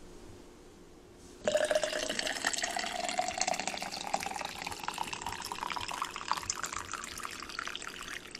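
Coffee poured from a carafe into a stainless steel insulated tumbler. It starts about a second and a half in, and the pitch of the stream rises steadily as the tumbler fills.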